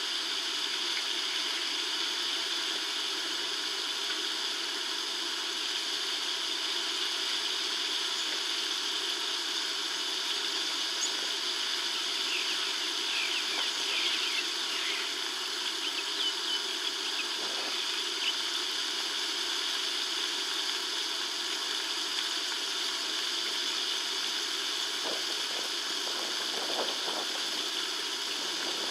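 Steady outdoor ambient hiss, with a few faint, short high chirps about halfway through.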